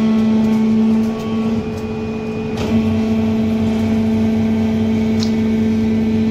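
Plastic injection moulding machine running with a steady, loud hum on one low tone. The hum weakens about a second in and comes back with a click near the three-second mark.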